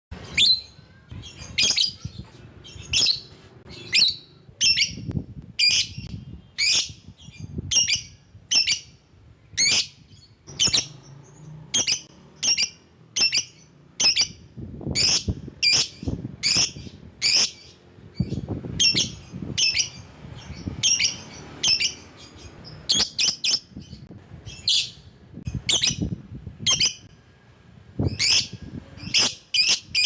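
Lovebird giving short, sharp, shrill chirping calls over and over, about two a second, with a few brief pauses.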